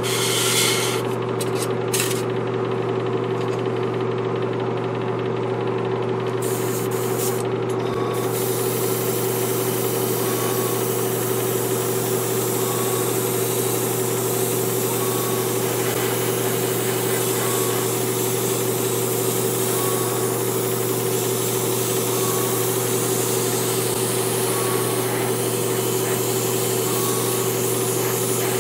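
Airbrush hissing as it sprays paint. It comes in a few short bursts over the first several seconds, then sprays continuously from about eight seconds in. Underneath is the steady hum of a small air compressor.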